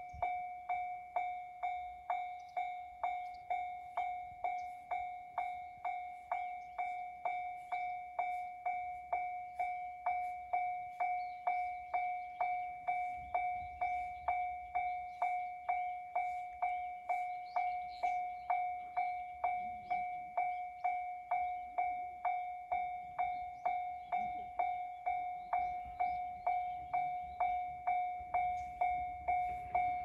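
Japanese railway level-crossing warning bell ringing in a steady, even 'kan-kan' of about two strikes a second, the signal that a train is approaching.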